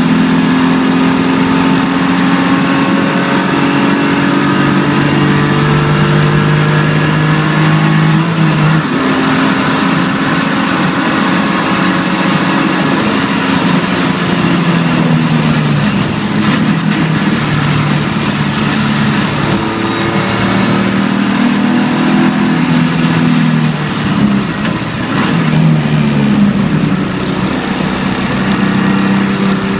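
BMW 325ti Compact's 2.5-litre straight-six engine running under load, heard from inside the cabin over a steady hiss of road noise. Its note shifts pitch about nine seconds in, and dips and rises again near the end as the car slows for a corner and pulls away.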